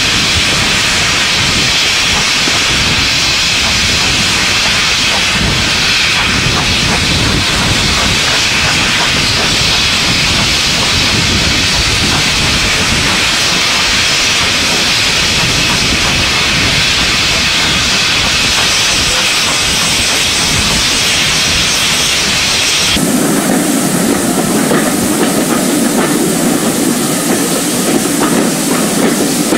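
Steam locomotive hissing steadily as it blows off or leaks steam. About three-quarters of the way through, the sound changes abruptly to the lower, steady rumble of a train running on the rails.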